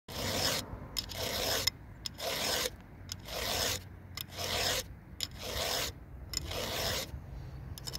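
Round file rasping across the cutters of a .325-pitch chainsaw chain: seven even sharpening strokes about a second apart, with light clicks between them as the file is lifted back.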